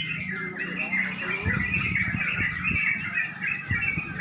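Many caged yellow-vented bulbuls (trucukan) singing at once in a contest round, a dense overlapping chatter of quick, bubbling chirped phrases. Under it is a steady low hum and a few dull low thumps midway.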